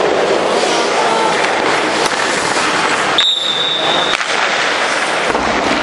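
Ice hockey goalie's skates and leg pads scraping and sliding across the ice, a steady rough hiss. A steady high tone lasting about a second sounds near the middle.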